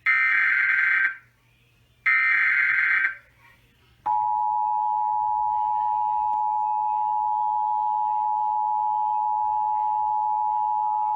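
Emergency Alert System header: two short, harsh SAME data bursts about a second apart, then, about four seconds in, the steady two-tone EAS attention signal starts and holds. This signals that a new alert is about to be read.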